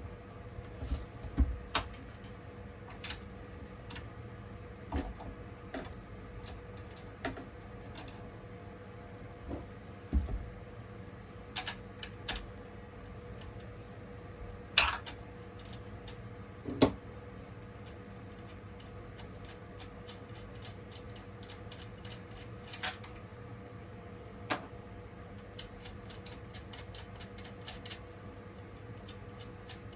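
Scattered metal and plastic clicks, clinks and knocks of chainsaw parts being handled and fitted by hand, several louder knocks among lighter taps and fewer after the middle, over a faint steady hum.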